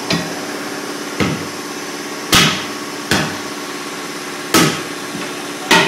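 About six heavy hammer blows, roughly one a second and unevenly spaced, as the bead of a large tractor tire is worked onto its steel rim with bars and a sledgehammer. A steady hum runs underneath.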